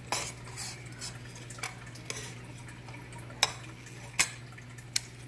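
Scattered sharp clicks and knocks of kitchenware: a plastic salad server tapping and knocking against the salad bowl, about six times, the loudest three in the second half. A low steady hum runs underneath.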